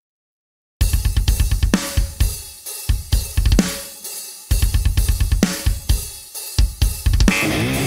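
Heavy metal drums cut in abruptly about a second in, with rapid kick drum hits under snare and cymbal strikes. Near the end a distorted electric guitar comes in: a PRS SE Torero played through an amp simulator.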